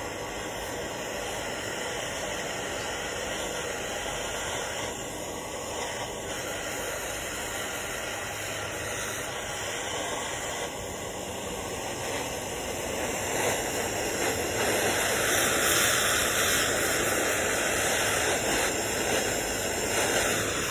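Handheld gas torch flame hissing steadily while heating aluminum for brazing with a low-temperature repair rod; the hiss grows louder about two-thirds of the way through.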